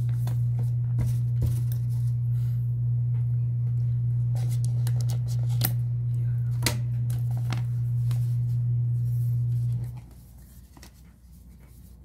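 Packaging on a tablet box crinkling and tearing in short sharp crackles as it is peeled and handled, over a steady low hum that cuts off about ten seconds in.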